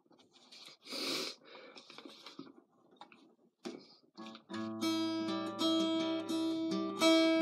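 A few soft rustles, then from about four and a half seconds in a steel-string acoustic guitar strummed, its chords ringing on.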